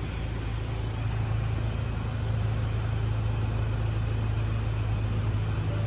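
Steady low machine hum with an even hiss underneath, holding at a constant level.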